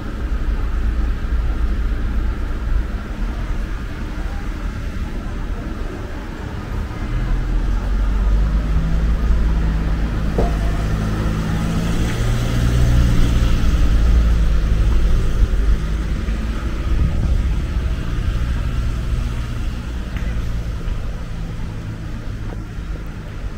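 A motor vehicle's engine running over a steady low rumble, growing louder around the middle and easing off again.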